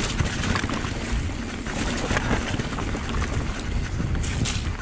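Giant Trance mountain bike riding over a rocky, wet trail: a steady rumble of tyres with frequent clicks and rattles from the bike over the rocks, and wind buffeting the microphone.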